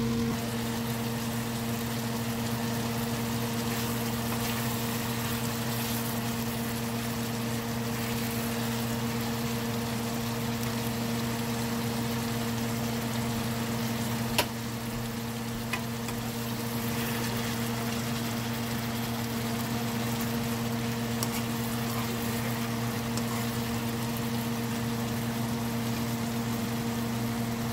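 Chicken and ginger stir fry simmering in its sauce in a wok, a steady bubbling hiss over a constant low hum. One sharp click about halfway through.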